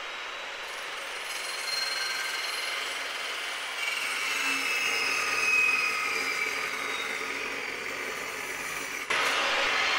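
Fein Slugger 14-inch carbide-tipped metal-cutting chop saw running and cutting through 3-inch, 1/8-wall 6061 aluminium tube, the blade screeching with thin high tones as it bites into the metal. The noise swells through the middle of the cut, and the level steps up suddenly about nine seconds in.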